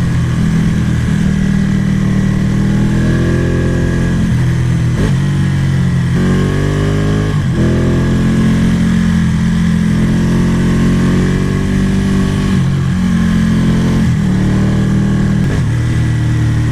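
Ducati 1199 Panigale's L-twin engine under way, its note rising and falling in pitch as the throttle opens and closes, with a few sudden breaks where the rider changes gear.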